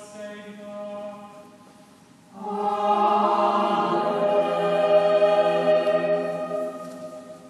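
Choral chant, sung in slow held notes. A quieter passage fades about two seconds in, then a fuller, louder chord of many voices comes in, swells, and fades again near the end.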